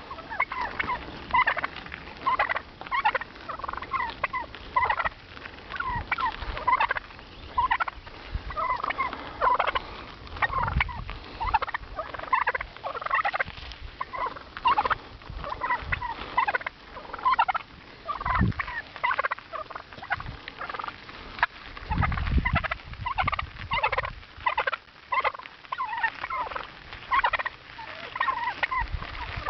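Wild turkeys calling over and over, short calls coming several a second in quick runs.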